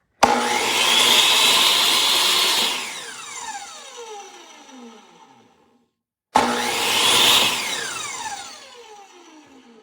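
DeWalt DWE7491RS 10-inch table saw motor switched on, whining up to speed, then switched off and winding down with a falling whine over about three seconds; a second, shorter start and spin-down follows a few seconds later. The blade coasts down quickly, which the owner takes for some kind of brake inside the saw and thinks doesn't seem right.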